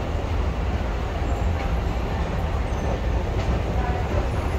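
Steady low rumble and noise of a Madrid Metro station, with no distinct events.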